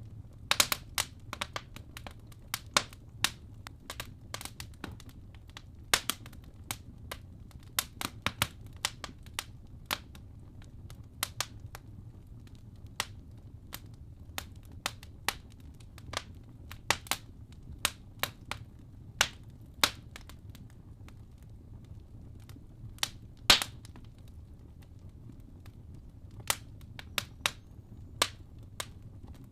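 Log fire in a fireplace crackling, with irregular sharp pops over a low, steady rumble of the flames; one pop stands out about 23 seconds in.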